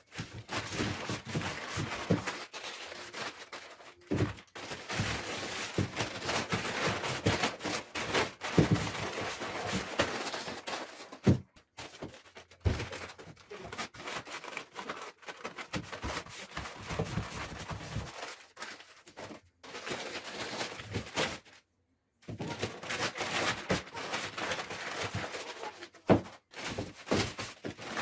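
Continuous scraping and rustling with frequent knocks of handling, broken by a few short pauses.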